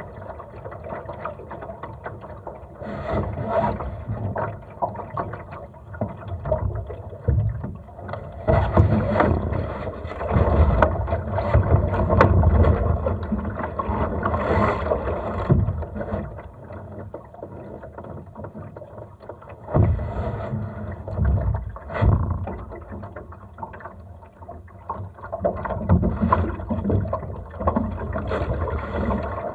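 Water sloshing and splashing along a Laser dinghy's hull as it sails in light wind, swelling and easing unevenly, with wind buffeting the microphone and a few sharp knocks.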